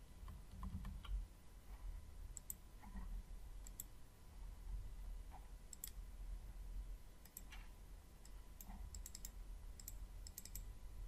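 Faint, scattered clicks of a computer mouse and keyboard, with a quicker run of clicks near the end, over a low steady hum.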